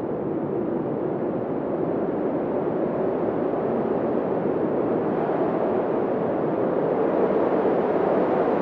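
Steady deep rushing noise of a sleep-aid noise track, with no tones or clicks, slowly growing louder and brighter.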